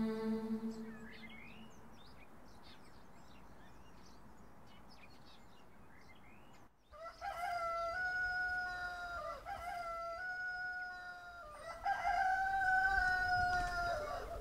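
Faint bird chirps over quiet outdoor ambience, then, from about halfway through, a rooster crowing over and over in long held calls with short breaks between them.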